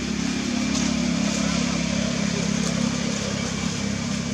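A steady low hum of a running engine that holds an even pitch throughout.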